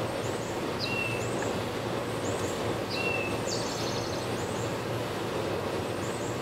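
Small birds chirping over steady outdoor background noise: short high chirps about once a second, two falling whistled notes, and a brief buzzy trill near the middle.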